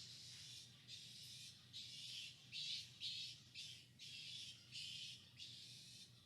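Faint series of raspy animal calls repeating in an even rhythm, about two a second, over a low steady hum.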